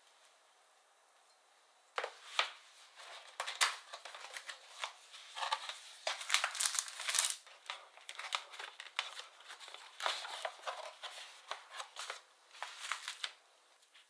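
Clear plastic film crinkling and tearing, with rustling from the cardboard box, as a boxed pack of sliced beef is opened and unwrapped. It starts about two seconds in as irregular crackles and sharp clicks, with one loud snap near the start.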